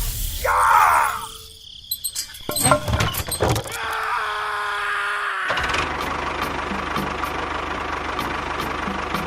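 Short mechanical clicks and a brief whine, then from about halfway in a small engine running steadily with a faint regular ticking.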